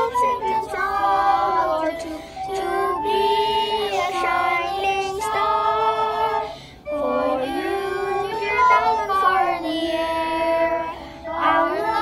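Children singing a song, holding long notes, with short pauses between phrases about seven seconds in and again near the end.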